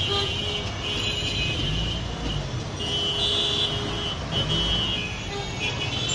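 Road traffic running past with vehicle horns sounding again and again in short and longer stretches of high, steady tone over a low rumble.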